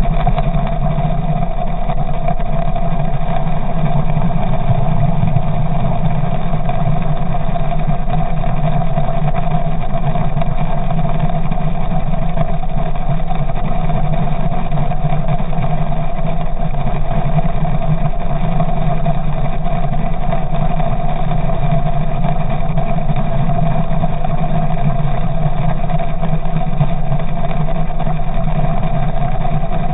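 Outboard motor running steadily in gear, heard underwater next to its spinning propeller and gearcase: an even, unbroken drone.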